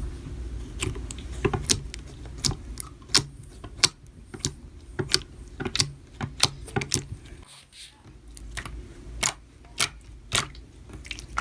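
Slime being worked by hand, giving off irregular sharp clicks and pops, a few a second, over a low hum.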